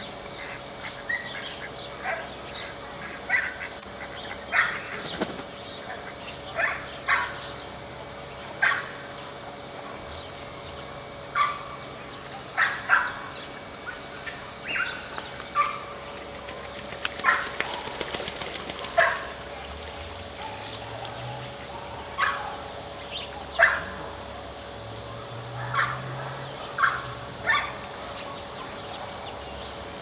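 Short, sharp animal calls repeated irregularly, roughly one every second or so, over a steady faint hum.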